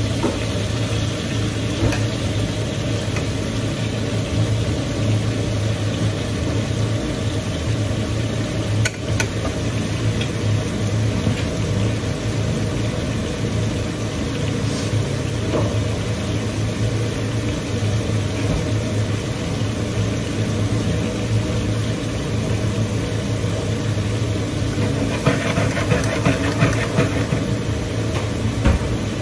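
Marinated lamb steaks sizzling in a pan on a gas hob, over a steady low hum. The sizzling grows louder near the end as the steaks are turned with tongs.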